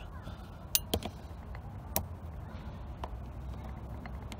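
A few sharp metallic clicks and light taps from starter-motor parts being handled, as the carbon brushes are pushed back and the field-coil housing is fitted over them. Two clicks come close together just under a second in and another about two seconds in, with fainter ticks between.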